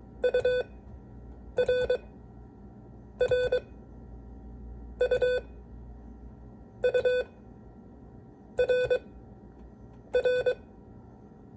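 Morse code practice tone sending the letters U (dit-dit-dah) and R (dit-dah-dit) in a mixed drill. Each letter is a short group of beeps at one pitch, about one letter every second and a half to two seconds, seven groups in all.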